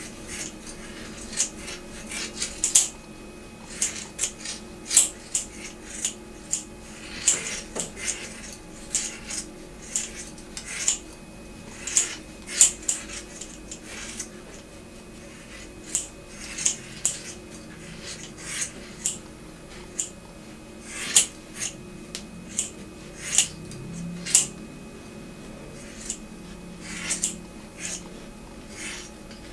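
Scissors snipping, many short sharp metallic snips at an uneven pace, sometimes two or three in quick succession, over a faint steady low hum.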